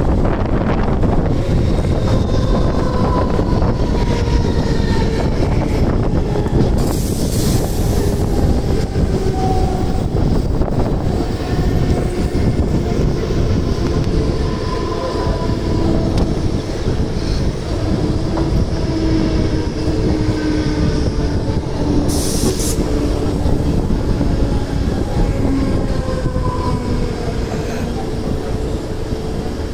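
Mumbai suburban electric local train running, heard from its open doorway: a steady rumble of wheels on the track mixed with wind. A faint whine falls slowly in pitch as the train slows toward the next station, with two short hisses, one about 7 s in and one about 22 s in.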